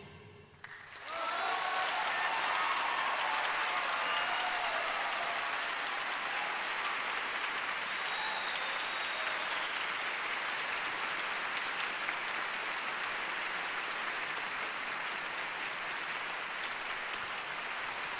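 Concert-hall audience applauding, starting about a second in and holding steady, right after the final note of a suona and orchestra piece, with a few shouted cheers in the first few seconds.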